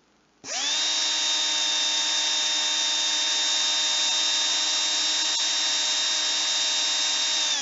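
Black & Decker Pivot Plus cordless drill's motor, running on its rebuilt two-cell LG HE2 18650 pack, switching on about half a second in and whining steadily at a constant pitch, held with no load.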